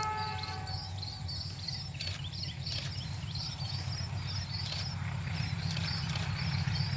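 The horn of a distant CC201 diesel locomotive sounds one steady chord that fades out about a second in. A run of short high chirps follows, repeating about twice a second over a low steady rumble that grows slightly louder.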